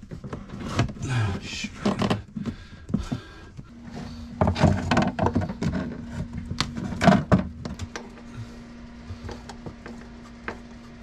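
Knocks, clicks and rustling as plastic water hoses are pulled and worked into place inside a wooden boat cabinet. A steady hum comes in about four seconds in.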